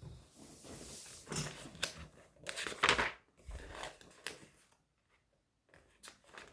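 Rustling and light knocks of objects being handled at close range, irregular, with a brief pause near the end.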